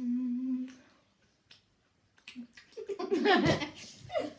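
A boy humming one steady low note that stops about a second in; after a short pause, a loud burst of a boy's vocal noise, laughing and exclaiming, about three seconds in.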